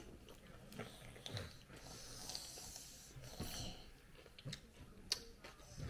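Quiet eating sounds at a dinner table: breathing through the nose and soft chewing, with a few sharp clicks and taps of dishes or cutlery, the clearest about five seconds in.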